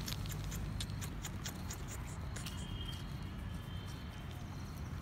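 Gravel and grit crackling and clicking as a puppy squirms on its back on stony ground, over a steady low rumble. The clicks come thickly at first and thin out about halfway, when a faint thin high tone is heard briefly.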